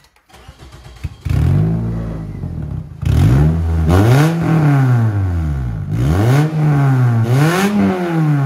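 Toyota Corolla four-cylinder engine, its exhaust piped through a length of rain-gutter downspout, being revved. The sound jumps up about a second in, then the revs climb and fall back about four times, the pitch rising and dropping with each blip.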